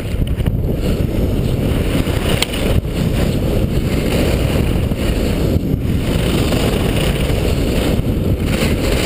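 Wind buffeting an action camera's microphone as a skier runs downhill at speed, a steady rumbling rush, with the hiss of skis carving on packed snow underneath.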